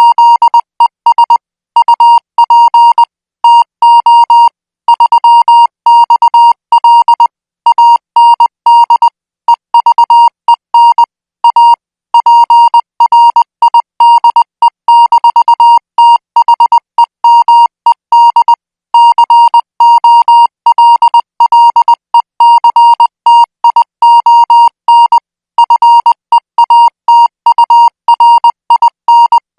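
Morse code sent at 20 words per minute as a high, steady beep keyed on and off: a continuous run of short dots and longer dashes with brief gaps between characters and words.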